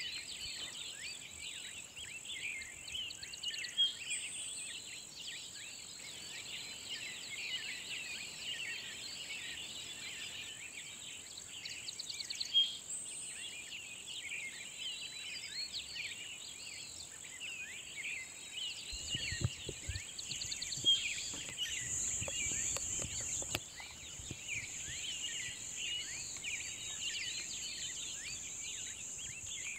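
Many small birds singing at once in a dense chorus of short chirps and trills over a steady high insect trill. A low rumble comes in for a few seconds past the middle.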